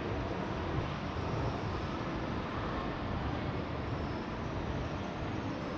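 G scale model train running along its track, heard from a camera riding on the train: a steady rumbling roll of wheels on rail.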